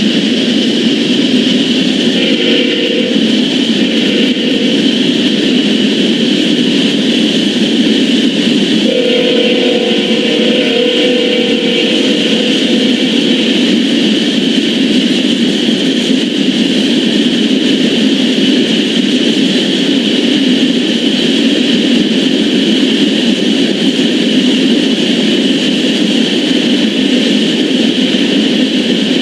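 Freight train of loaded crude-oil tank cars rolling steadily past, led by two GE ES44 GEVO diesel locomotives, with a constant rumble and rail noise. A Nathan K5HLL air horn sounds over it: two short notes a few seconds in, then one longer blast of about four seconds around ten seconds in.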